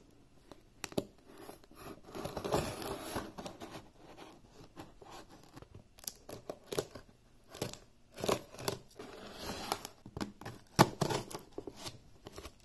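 Packing tape on a cardboard shipping box being slit open with a knife and pulled apart: irregular scraping and tearing with the cardboard rustling and a few sharp clicks.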